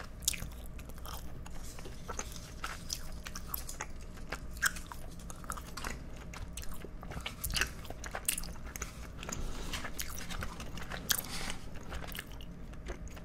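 Chewing gum right up close to the microphones: a steady run of small, irregular mouth clicks and smacks from closed-mouth chewing.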